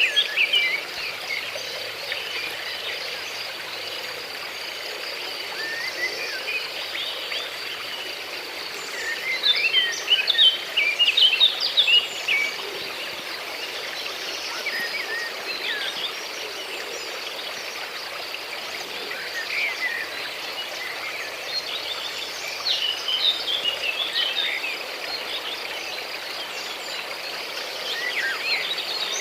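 Outdoor nature ambience: small birds singing in short bouts of quick chirping phrases that come and go, over a steady high insect drone and a soft continuous hiss.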